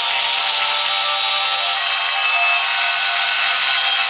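Angle grinder with a thin cut-off wheel cutting into a 1/4-inch steel plate on a lower control arm, running steadily under load with a high-pitched whine.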